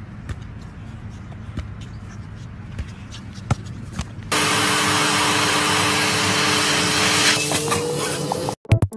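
Vacuum cleaner running with its hose nozzle held at a cat's face: a loud, steady suction hiss with a low hum. It starts suddenly about four seconds in and cuts off just before the end. Before it there is only a faint background with scattered light clicks.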